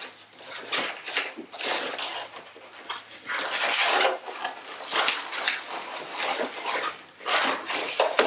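Orange latex 160 twisting balloon squeaking and rubbing against itself in a run of irregular squeaks as it is twisted into loops for a balloon fish's fins.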